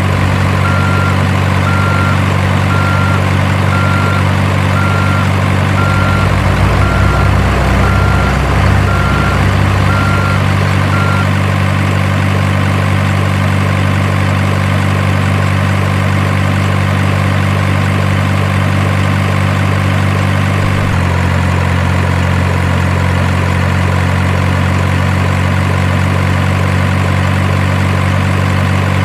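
Simulated heavy diesel engine of an RC construction model idling steadily, its note deepening for a few seconds about six seconds in and shifting again about twenty-one seconds in. A high warning beep sounds about once a second for the first ten seconds.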